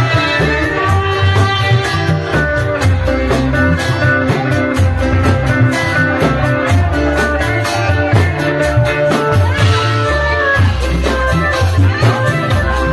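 Amplified live music of an Indramayu Reog troupe: a melody carried over a steady, regular drum beat and heavy bass.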